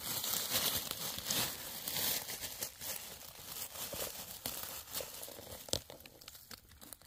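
Dry beech leaves rustling and crackling as a hand pushes through the leaf litter, louder at first and then softer, with one sharper click near the end.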